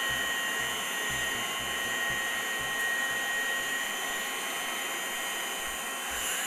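Coal forge blower running steadily, forcing air into the coal fire to raise the heat: a rush of air with a steady high whine over it.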